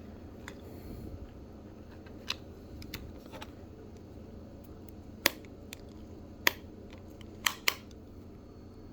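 Scattered sharp clicks and light taps from hands handling a small plastic part and its tint film, about eight at irregular spacing, the loudest a little past the middle.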